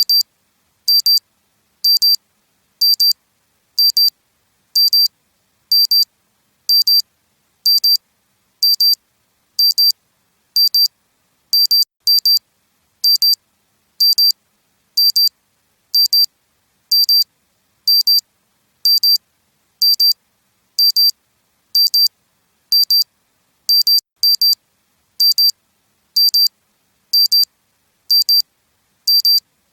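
Digital alarm clock beeping: short, high-pitched electronic beeps repeating about once a second, with silence between them.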